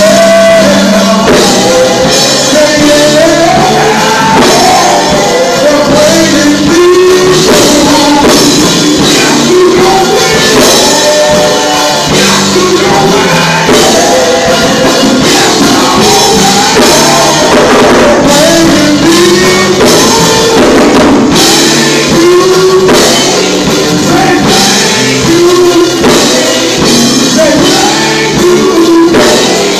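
Gospel vocal group singing into microphones over a live band with drum kit and guitar, loud and continuous.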